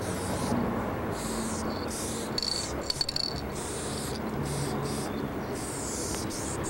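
Aerosol spray-paint can hissing in short bursts, roughly one a second, each cutting off sharply, over a steady low rumble.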